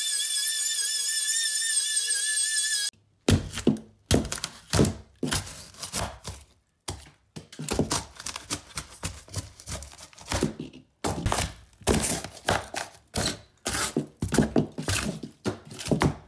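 Irregular knocks, cracks and crunches as a hammer pries and rips a strip of foam insulation and thin plywood out of a camper wall. Before that comes a steady high whine with a wavering pitch, which cuts off about three seconds in.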